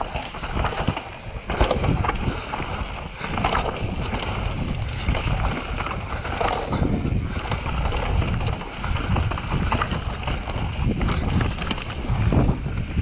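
Cube Stereo mountain bike riding fast down a rough dirt trail: tyres on dirt and roots, with the frame and chain clattering and knocking over the bumps. Wind rushes over the camera microphone throughout.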